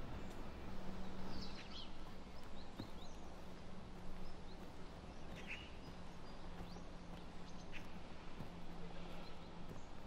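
Outdoor ambience: a steady low hum and background noise, with scattered short bird chirps every second or two.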